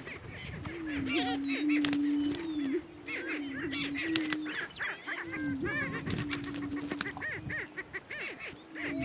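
Male greater prairie chickens calling: a low, steady booming drone in two long stretches, with many quick cackles and whoops over it from the two males fighting.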